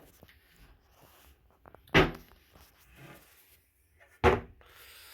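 Two sharp knocks about two seconds apart, each dying away quickly.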